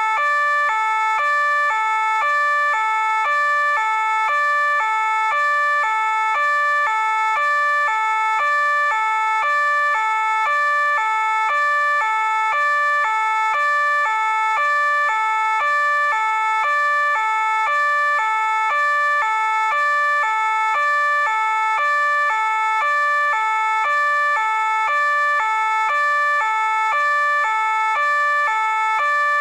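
French police two-tone siren ("deux-tons") sounding continuously, a high and a low note alternating at an even pace of about one pair a second, with no change in pitch or loudness.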